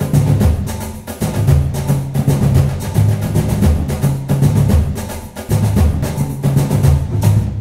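Background music: a percussive track with a quick, steady beat of sharp hits over a low bass line.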